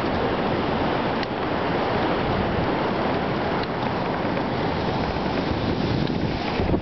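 Steady rushing wind noise on the microphone of a camera riding low on a recumbent trike as it rolls over hard beach sand.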